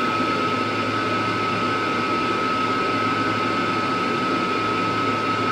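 Steady fan drone from a fume extractor and a mini laser engraving machine running together, with a constant high whine over it.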